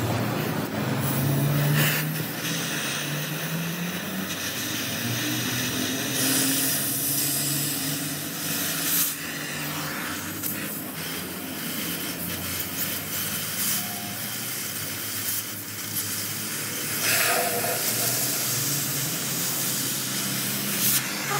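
Oxy-acetylene torch hissing steadily as it heats and cuts the steel at the cracked spindle of a truck's rear axle housing. Under it runs a low hum, with a few short louder bursts.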